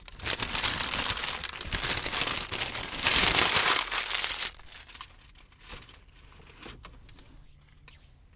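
Food wrapping being crumpled and crinkled by hand, loud and dense for about four and a half seconds and loudest near the end of that stretch, then dying down to faint rustles and light clicks.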